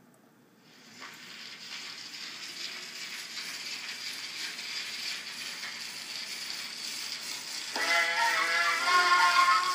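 Edison Standard Phonograph playing a cylinder record through its horn: after a second of quiet the cylinder's surface hiss comes up and grows, and about eight seconds in the recorded music starts.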